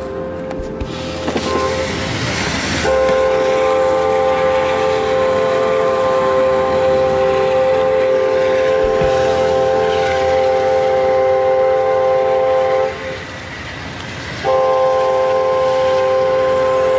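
Amtrak passenger train's locomotive horn sounding a chord of several steady tones: faint at first, then about three seconds in a loud long blast of about ten seconds, a brief break, and a second long blast near the end.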